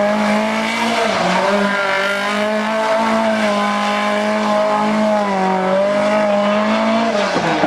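Lancia 037 rally car's supercharged four-cylinder engine held at high revs, its note almost level with slight wavering for several seconds, then dropping near the end.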